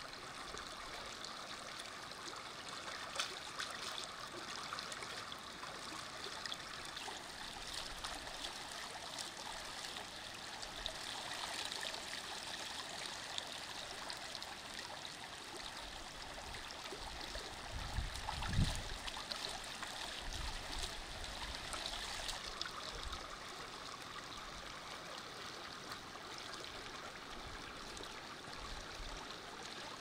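Stream water flowing steadily, with one dull low bump about eighteen seconds in.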